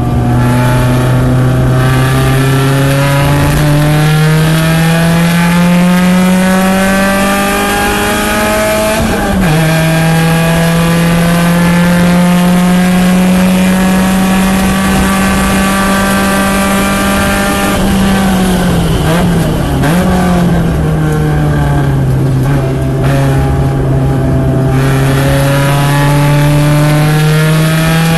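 Porsche 944 race car's four-cylinder engine at full throttle. The revs climb steadily, dip sharply for an upshift about nine seconds in, then hold high. Around eighteen seconds in they fall unevenly through the downshifts, then climb again near the end.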